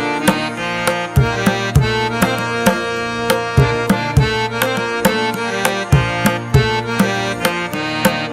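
Background instrumental music: hand-drum strokes in a repeating rhythm over a sustained melodic instrument.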